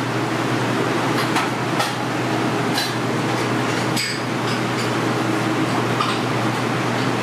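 Steady hum of a busy commercial kitchen, with a scattering of sharp clinks and knocks from metal utensils and dishes.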